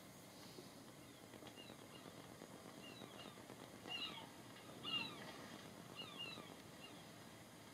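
Faint, short, high chirping calls from an animal, a handful spread roughly a second apart, over near-silent room tone.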